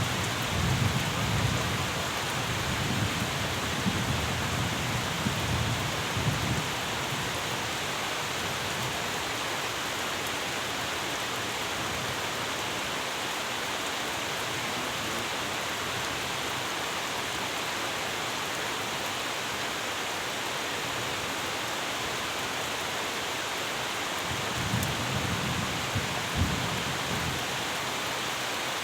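Steady rain falling, an even, dense hiss, with low rumbles of thunder for the first several seconds and again near the end.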